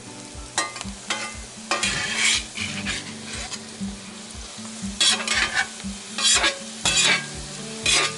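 Diced potatoes sizzling in bacon grease in a Field Company No. 12 cast iron skillet while a slotted metal spatula scrapes across the pan bottom in short strokes, turning them. The scrapes come several at a time and are loudest in the second half.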